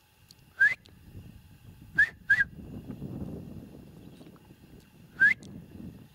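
Roe deer call (hunter's lure) blown four times: short, squeaky peeps rising in pitch, two of them close together about two seconds in, imitating a doe's squeak to draw the buck.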